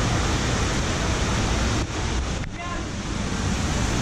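FlowRider surf simulator's pumped sheet of water rushing steadily up its ramp, with a brief dip in loudness about halfway.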